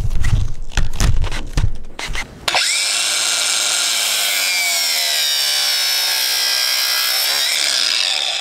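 A few low handling knocks, then a 4-inch cutoff wheel on an angle grinder runs with a loud, steady high whine for about five and a half seconds as it cuts through nylon braided fuel line. Its pitch sags slightly partway through and picks back up before it shuts off.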